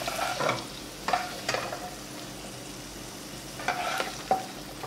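Cashews and raisins sizzling in ghee in a nonstick pan, with a spatula scraping and knocking against the pan several times as it scoops them out.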